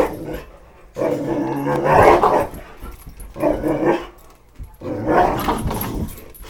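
Boxer dog barking excitedly in three long bursts while chasing a flashlight beam, the first burst the longest.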